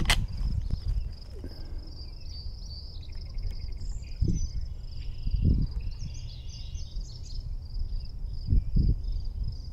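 Insects trilling steadily in one high, even tone over a low rumble, with a few soft, dull thumps about four and a half, five and a half, and eight and a half seconds in.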